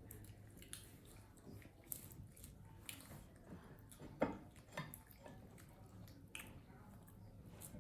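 Faint scattered clicks and wet smacks of monkeys eating, with one sharper click about four seconds in.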